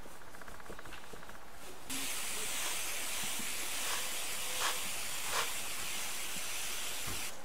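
Watering wand spraying a steady hiss of water onto a tray of freshly sown seed-starting soil, watering the seeds in. The spray starts about two seconds in and cuts off just before the end.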